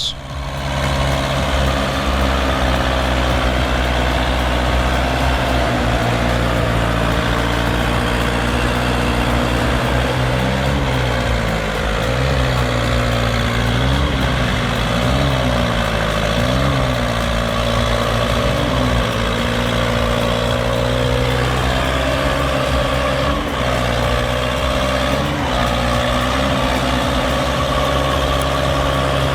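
Heavy vehicle engine running steadily, with several short rises and falls in engine speed in the middle and one more near the end.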